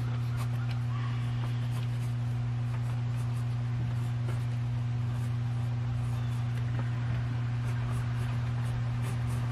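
A steady low hum, with faint, irregular scratching of a mechanical pencil drawing on paper.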